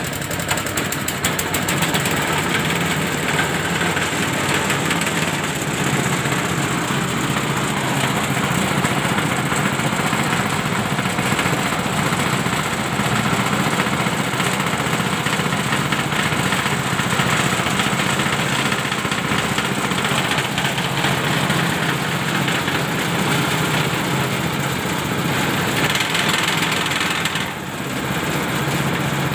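Gambino 5.5 HP single-cylinder four-stroke petrol engine catching right at the start, then running steadily while it drives a rice thresher's drum through V-belt pulleys. The level dips slightly near the end.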